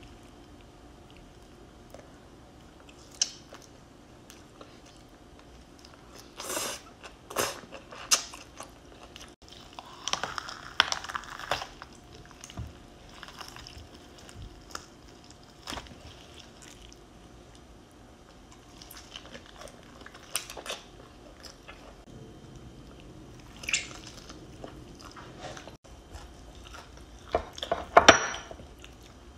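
Whole cooked chicken being torn apart by hand: scattered short wet tearing and squishing sounds of skin and meat pulling off the bone, with the loudest cluster near the end as a leg is pulled away.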